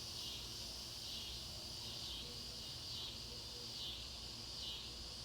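Insect chorus, a high steady trill that swells and fades gently, with no other event standing out.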